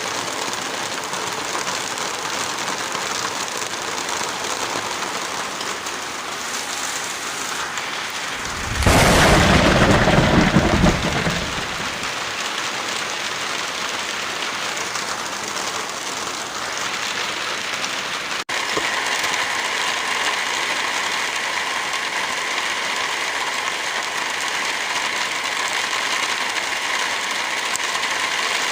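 Steady heavy rain hissing, with a loud, low rumble lasting about three seconds starting about nine seconds in. A brief dropout comes a little past halfway, after which the rain carries on slightly louder.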